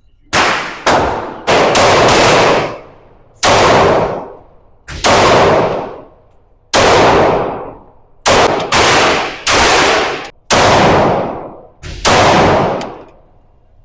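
Gunshots fired at a shooting range: about a dozen single shots at an uneven pace, some in quick pairs, each followed by a long echoing decay.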